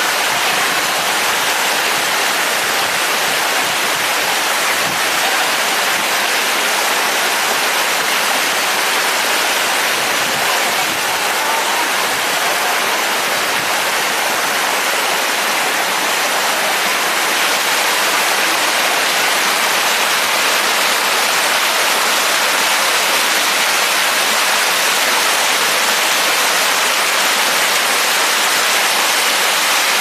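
Waterfall: falling water rushing in a loud, steady roar of white noise.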